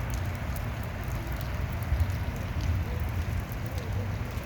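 Light rain falling, with scattered small ticks of drops over a steady, uneven low rumble.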